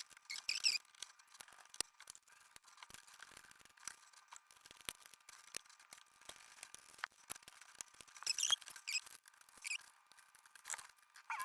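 Light clicks and taps of a motherboard being fitted back into a PC case, with short high squeaks just after the start and again about eight seconds in.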